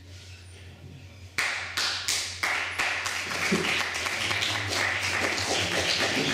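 Audience clapping. It starts abruptly about a second and a half in with a few separate claps, then fills into dense, steady applause.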